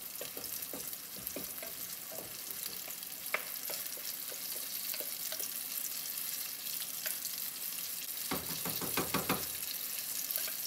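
Apple fritters deep-frying in a pot of hot oil: a steady high sizzle scattered with small crackles and pops. About eight seconds in, a wooden spoon knocks and scrapes for about a second as the last of the batter goes into the oil.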